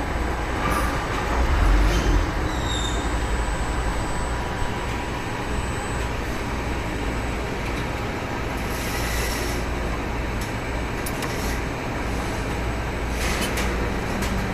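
CNC roll-up door spring coiling machine running with a steady low mechanical hum, with a short hiss of air about two-thirds of the way in and fainter hisses near the end.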